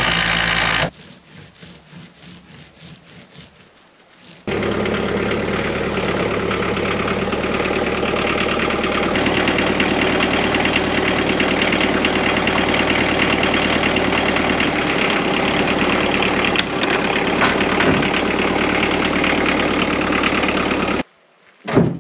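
A cordless drill runs for about a second, driving a screw into plywood. After a few quieter seconds, a Mahindra compact tractor's diesel engine runs steadily for most of the rest, cutting off suddenly near the end, followed by a short thump.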